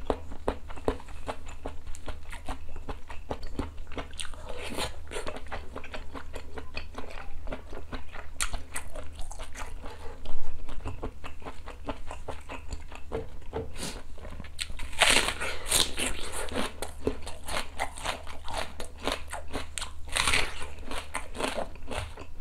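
Close-miked eating sounds: steady wet chewing and lip-smacking clicks from a mouthful of sundae hot pot, with louder crunching bites, as of raw onion, about 15 and 20 seconds in. A single short thud stands out about 10 seconds in.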